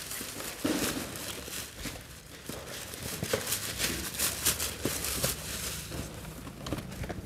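Thin plastic carrier bags rustling and crinkling while small cardboard boxes are handled and slipped into them, a run of short, irregular crackles.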